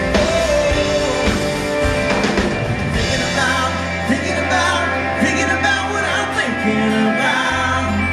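Live band performing a song: male lead vocals over electric and acoustic guitars, bass guitar and keyboards, heard from the crowd.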